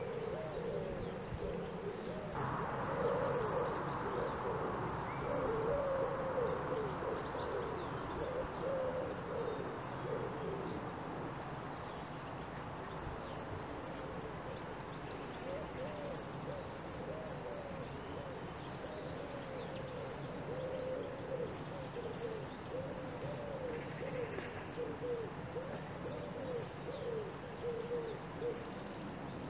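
Birds calling outdoors: low, wavering calls repeat with barely a break, with faint higher chirps above them. A steady rushing noise comes in suddenly about two seconds in and fades away over the next ten seconds.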